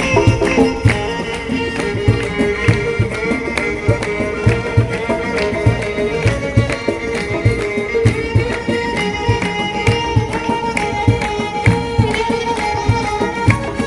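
Traditional-style music: a steady hand-drum beat under a held melody line.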